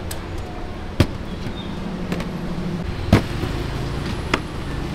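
Three sharp metallic knocks, about a second in, near three seconds and a fainter one just after four, as a metal spike is slapped by hand through the lids of tin milk cans to punch pouring holes. A steady street traffic hum runs underneath.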